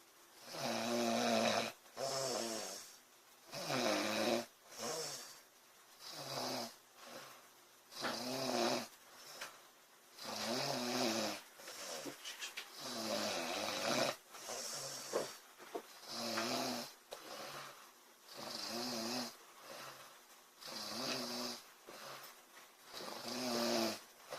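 A woman snoring in her sleep, in a regular rhythm of about one breath every two to three seconds. Each pitched snore alternates with a breathy rush of air.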